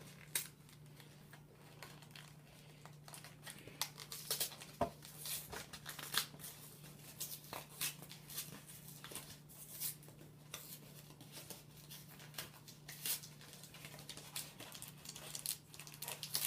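Packaging of a Pokémon Legendary Treasures booster being handled and torn open: irregular crinkles, rustles and small clicks throughout, over a faint steady low hum.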